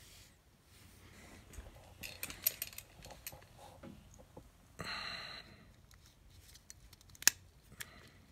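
Handling of steel locking pliers (vise-grips) while setting up to crimp a butt connector: rustling and small metal clicks, a short hiss around the middle, and one sharp metallic click a little before the end.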